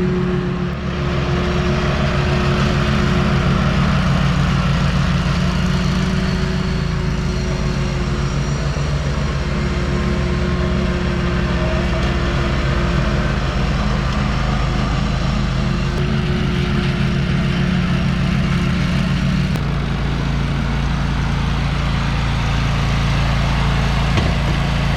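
Engine of a 2017 Walker riding mower running steadily while it mows and working hard, with its pitch dropping a little about twenty seconds in.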